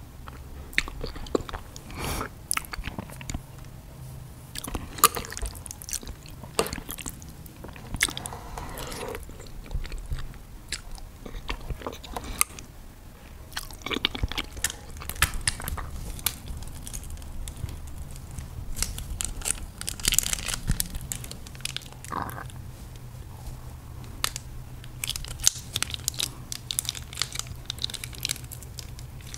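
Close-miked eating of noodles: irregular chewing, biting and wet mouth sounds from chopstick-fed bites. Near the end come quicker crinkly clicks as a plastic sauce sachet is handled and squeezed.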